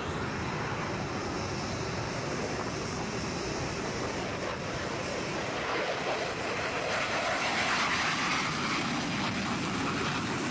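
Jet fighter engine noise: a steady rushing jet roar that swells and grows brighter about seven to eight seconds in, as from a close pass.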